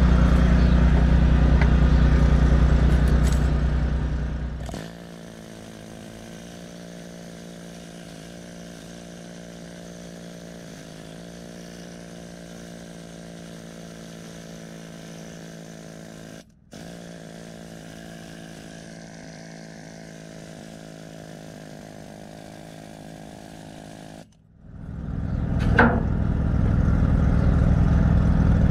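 An engine running fast and loud, then dropping to a steady idle about five seconds in and speeding up again near the end.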